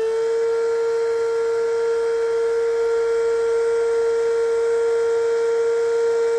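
Bravo BTP12 electric turbo pump running at a steady pitch, a loud even hum, inflating an inflatable kayak's side chamber through its hose.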